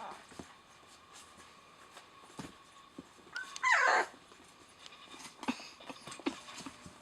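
Newborn Rottweiler puppy, about eleven days old, giving one short high squeal a little over halfway through, among faint rustling and small clicks.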